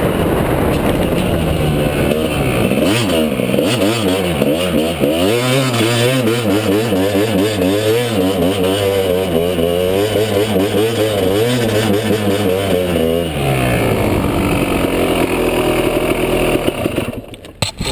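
Dirt bike engine heard from on board, its revs rising and falling over and over as it is ridden. The note settles lower about 13 seconds in, then drops away sharply near the end, with a few knocks.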